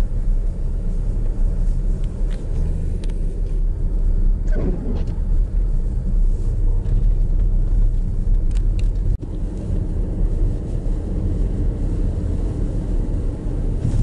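Vehicle driving, a steady low rumble of engine and tyres. A short falling squeal comes about five seconds in, and the sound cuts out for an instant about nine seconds in.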